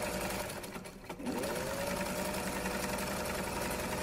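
Sewing machine running with a steady whirring hum. It slows and fades for a moment about a second in, then starts up again with a rising whine and runs on steadily.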